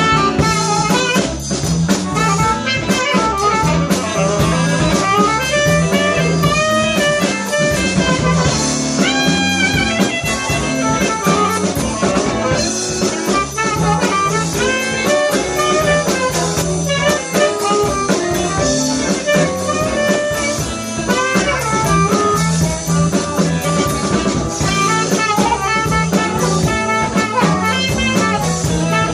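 Live blues band playing: a saxophone plays lead lines over electric guitar, bass, keyboard and drum kit.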